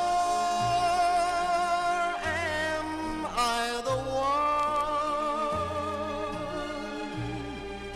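Instrumental passage of a 1960s orchestral pop ballad: a melody of long, wavering held notes that slide from one pitch to the next, over a slow bass line.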